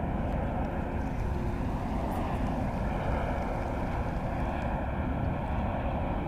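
Steady low rumbling drone of wind and distant engine noise, even throughout with no distinct events.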